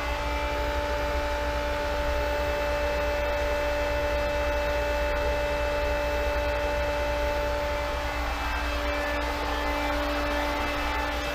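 A 1.5-horsepower Pentair SuperFlo variable speed pool pump running at maximum speed, making a steady hum with a steady whine over it.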